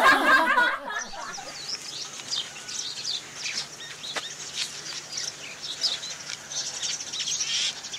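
Voices laughing and chatting for about the first second, then many small birds chirping in quick, scattered calls.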